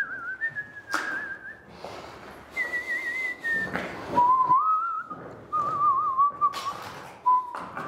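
A man whistling a slow tune, long held notes with a wavering vibrato that step downward in pitch, mixed with a few knocks from rubber-boot footsteps on a wet concrete floor.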